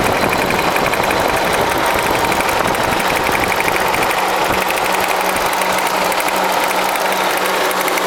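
Toyota 5S-FE 2.2-litre inline-four idling with a steady, rapid knock that keeps time with engine speed. The knock is at its strongest at idle, nearly disappears with a little throttle, and does not change at all when the spark plugs are pulled one at a time.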